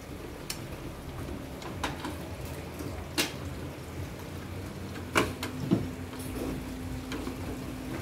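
Scattered metal clinks and knocks of tools and parts as a mechanic works by hand in a car's engine bay, changing an engine mount. A steady low hum starts about five seconds in.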